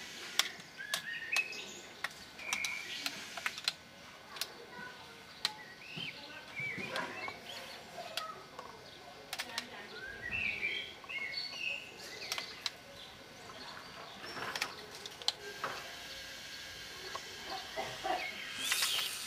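Garden ambience: small birds chirping on and off, faint voices now and then, and scattered sharp clicks.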